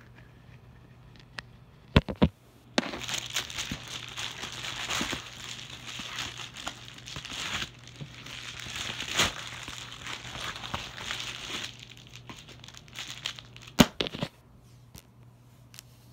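Plastic bubble mailer being opened and the plastic-wrapped package inside handled, with crinkling and tearing of plastic for about eleven seconds. A few sharp clicks come about two seconds in and again near the end.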